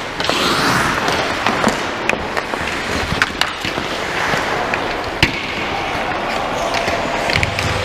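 Hockey play: a steady scraping hiss of skates with scattered sharp clacks of sticks and puck, the loudest about five seconds in.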